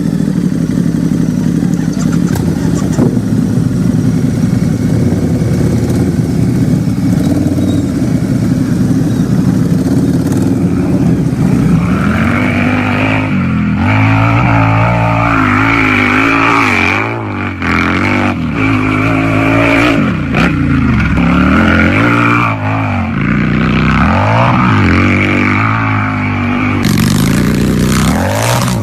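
Harley-Davidson motorcycle's V-twin engine idling steadily, then, from about twelve seconds in, revved again and again, the pitch rising and falling with each blip of the throttle.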